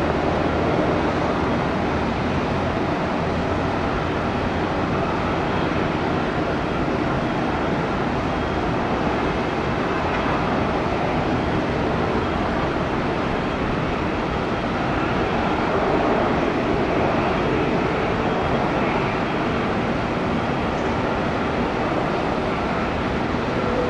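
Jet airliner engines at takeoff power, a steady loud rumble with a slight swell about two-thirds of the way through.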